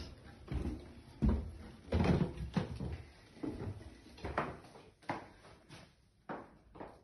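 Footsteps going up carpeted stairs, a dull thud about every half second to second, then sharper knocks as an interior door is opened later on.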